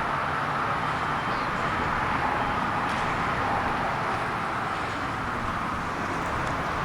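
Steady hum of road traffic, an even wash of noise with no distinct events.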